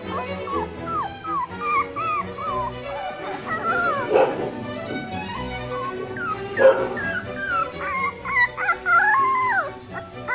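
Rajapalayam puppy, about twelve days old, whimpering in many short, falling cries, with louder cries about four and six and a half seconds in, over background music.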